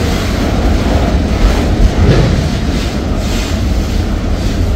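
Freight train of autorack cars rolling past close by: steel wheels running over the rails in a loud, steady rumble with irregular swells of clatter.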